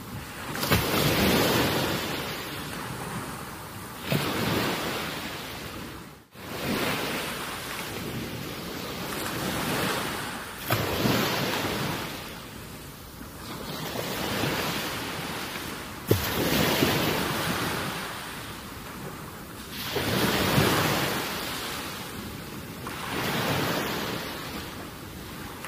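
Gusty wind buffeting the microphone over small waves on the water, a rushing noise that swells and fades every few seconds, with a few brief knocks.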